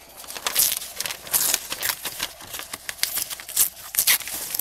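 Thin newsprint being torn by hand, a series of short, uneven rips and paper rustles.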